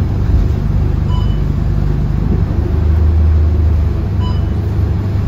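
Scania K230UB city bus's five-cylinder diesel engine running with a steady low rumble, growing louder around three seconds in. Two short electronic beeps sound about three seconds apart.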